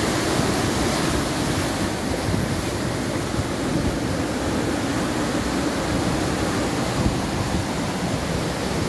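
Rough sea surf washing in over rocks and sand at close range: a steady rush of breaking, foaming waves.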